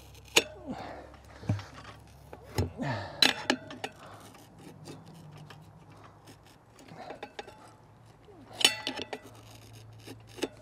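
Steel tire levers scraping and clicking against a spoked motorcycle rim as the bead of a knobby tire is levered over the rim edge in small bites, with rubber rubbing on metal. Scattered sharp knocks come from the levers, loudest about three seconds in and again near nine seconds.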